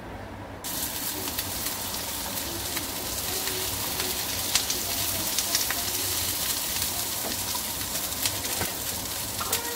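Sliced onions and green capsicum sizzling in hot oil in a frying pan, with scattered crackles. The sizzle starts abruptly about a second in.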